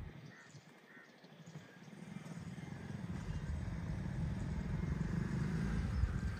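Motor vehicle drawing nearer, a low rumble that grows steadily louder from about two seconds in.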